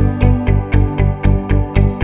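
Background music with a steady beat, about four beats a second.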